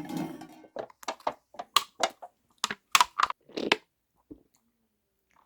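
The fizz of a freshly opened beer dying away, then about a dozen short, irregular gulps and clicks of the beer being drunk.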